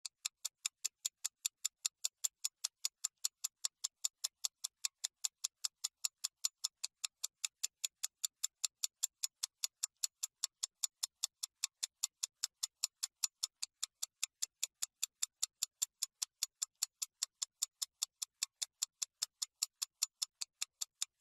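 Clock ticking, an even run of about four sharp ticks a second over dead silence, with no room sound beneath it: a waiting sound effect laid in during editing.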